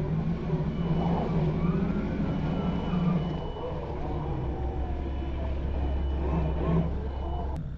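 Scale RC crawler's electric motor and geared drivetrain whining as it crawls through loose sand, the whine rising and falling in pitch with the throttle over a steady low hum. The sound cuts off suddenly near the end.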